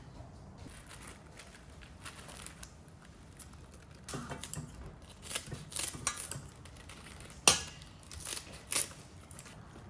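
Kitchen handling sounds: short scattered rustles and clicks in the second half, with one sharp knock about seven and a half seconds in.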